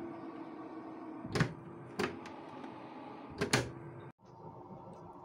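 Plastic lid and trays of an electric stacking food dehydrator clacking sharply as they are set in place, four knocks with the last two close together, over the steady hum of the dehydrator's fan running.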